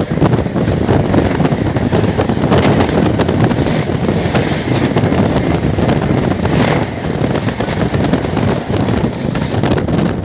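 Two trains crossing at speed, heard from the open doorway of one: a loud, steady rush of wind and wheel-on-rail noise, with many sharp clacks as the passing express train's wheels run over the rail joints.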